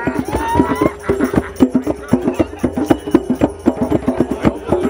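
Drums beaten in a fast, steady rhythm of several strikes a second, with a voice calling out briefly near the start.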